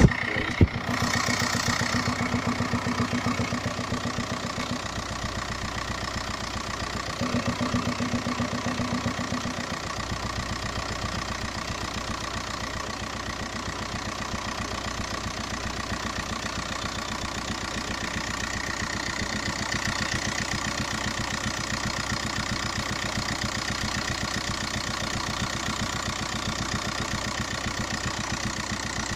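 Volkswagen 1.9 TDI (BXE) four-cylinder diesel idling steadily, with a knock that the owner places in the intake. A single sharp click sounds just after the start.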